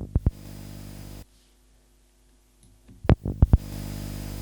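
An atmospheric noise sample playing back as a steady, hum-like drone with hiss on top. It stops about a second in and, after a pause and a few sharp clicks, starts again louder near the end.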